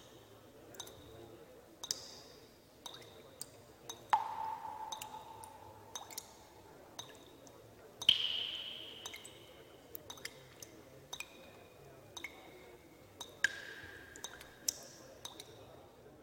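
Water dripping, a few loud pitched plinks several seconds apart that ring briefly and fade, over sharp ticks about once a second.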